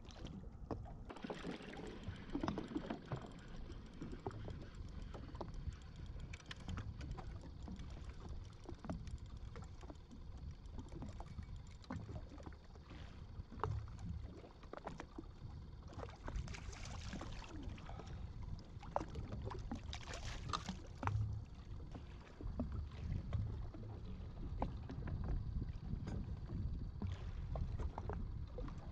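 Waves lapping against the hull of a drifting jet ski, with wind rumbling on the microphone and scattered clicks and knocks from fishing gear being handled. Two short hisses stand out, about halfway through and again a few seconds later.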